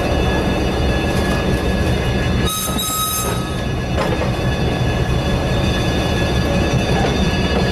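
Railroad cabooses rolling slowly past on the rails: a steady low rumble of steel wheels on track with thin high flange squeals over it. A sharper, brighter squeal comes about two and a half seconds in, and there is a single click near four seconds.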